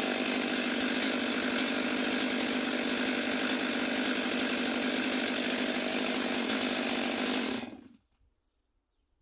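Stihl MS 500i two-stroke chainsaw running steadily at high speed while ripping wood lengthwise along the grain; the sound cuts off abruptly about seven and a half seconds in.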